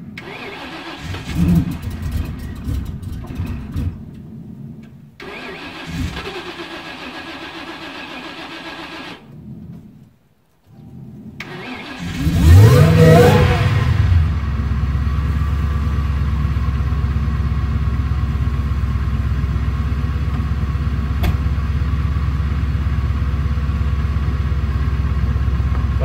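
A car engine starts about twelve seconds in with a quick rising rev, then settles into a steady idle. Before it, several seconds of uneven knocks and noise are broken by two short dropouts.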